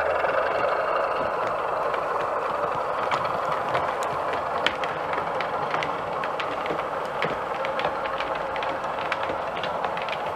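O gauge model diesel locomotive running under DCC sound: a steady diesel engine sound from its on-board speaker, with sharp, irregular clicks of wheels over rail joints joining in about three seconds in.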